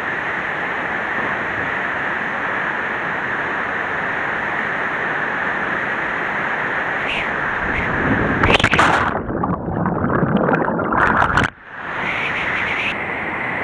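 Steady rush of a waterfall in a narrow rock gorge. About eight seconds in, loud splashing and churning water close to the microphone takes over for about three seconds, then cuts off suddenly, and the waterfall's rush returns.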